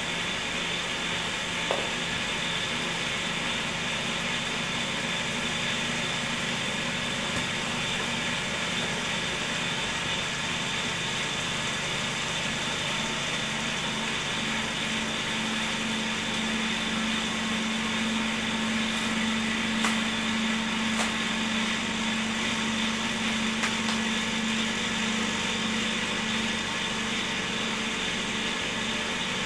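Cotton candy machine's DC motor running steadily, a constant whirring hum. A low hum grows stronger about halfway through, with a few faint clicks.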